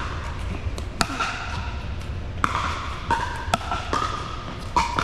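Paddles striking a plastic pickleball in a rally: about five sharp, echoing pops roughly a second apart, over a steady low hum.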